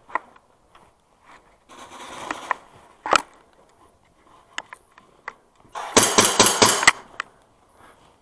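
Scattered footsteps and knocks, then an airsoft electric rifle fires a short full-auto burst of about seven shots in under a second, with the gearbox whirring under the shots.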